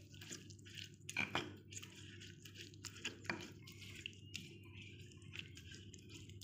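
Stone pestle pressing and stirring wet chili sambal with coconut milk in a stone mortar (ulekan and cobek): soft, irregular wet squishing and scraping. A few sharper clicks of stone on stone come about a second in and again near three seconds.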